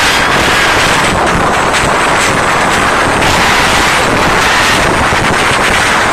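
Concert crowd screaming without a break, loud enough to overload a phone's microphone, so it comes through as a harsh, distorted, steady noise.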